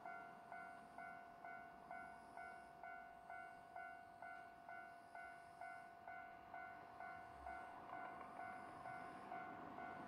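Railway level crossing alarm ringing steadily, an electronic ding repeating about twice a second: the warning that a train is approaching.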